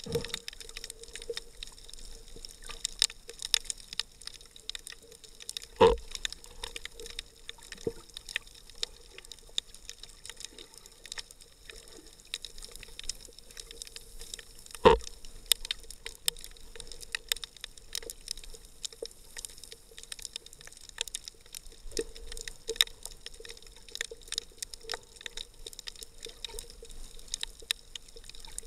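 Underwater sound picked up through an action camera's sealed waterproof housing: muffled water movement with a constant crackle of scattered clicks and a faint steady hum. Two louder thumps come about six seconds in and about fifteen seconds in.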